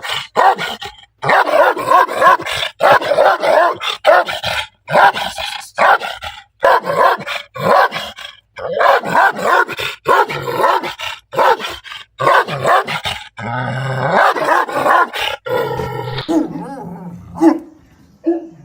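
A dog barking loudly in rapid, repeated barks, with a longer drawn-out growling stretch about two-thirds of the way through, then a few separate barks near the end.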